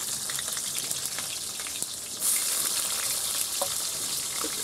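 Chopped onion sizzling in hot vegetable oil with panch phoron in a metal wok, stirred with a spatula; the sizzle gets louder about two seconds in.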